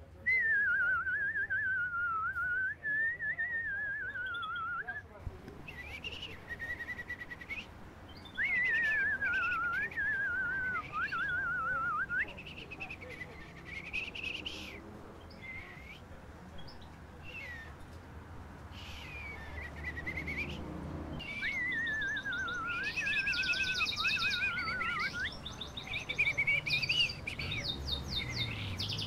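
People whistling in imitation of birdsong. There are warbling whistled phrases that waver up and down, with a lower line and higher swooping calls, and the two overlap with fast trills in the second half.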